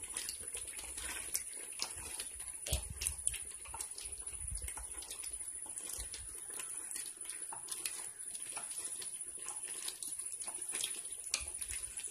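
A spoon scraping and knocking against the inside of a metal pot while stirring cooking water apple jam: irregular clacks, a few louder ones about three seconds in. A faint steady high whine sits underneath.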